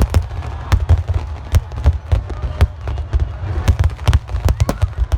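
Aerial fireworks going off in quick succession: a dense run of sharp cracks over continuous deep booms.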